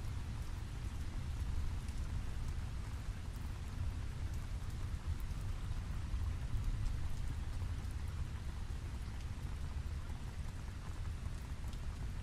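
Steady rain with a constant low rumble underneath and faint scattered drop ticks.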